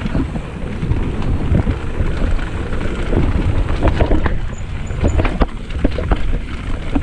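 Mountain bike riding fast over a dirt trail: a steady rumble of tyres and wind buffeting the microphone, with frequent sharp knocks and rattles as the bike goes over bumps and roots.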